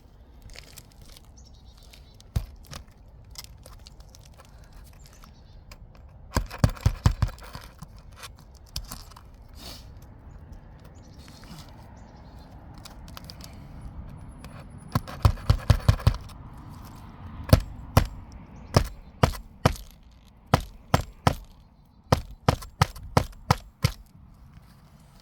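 A hammer striking nails into roof shingles: two quick flurries of about half a dozen sharp blows, then a run of single blows roughly a second apart.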